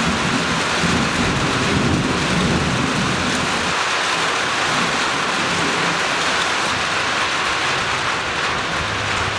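Heavy rain pouring steadily during a thunderstorm, with a low rumble of thunder that dies away about four seconds in.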